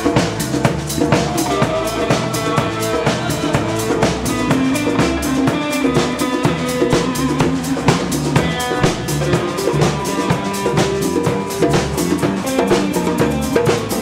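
Live band playing a song: drum kit and congas keep a steady beat under electric guitar and electric bass.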